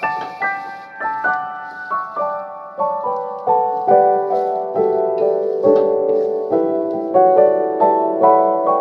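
Background piano music: a gentle melody of struck notes, each ringing and fading, about two to three notes a second.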